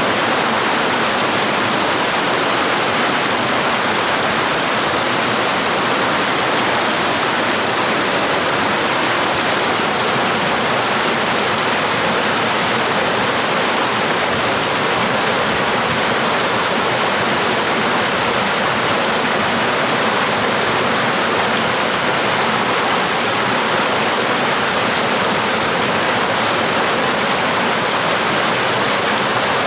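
Water from a waterfall or stream pouring steadily, an even rushing hiss with no changes.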